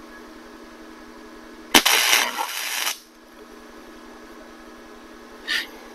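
Flux-core wire-feed welder arcing on the steel loader bucket: one burst of crackling about two seconds in, lasting just over a second, as a hook is tacked on. A short faint tick follows near the end.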